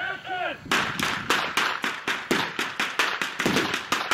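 A brief shout, then, from under a second in, a rapid and uneven volley of sharp gunshots, about five or six a second: prop guns firing blanks.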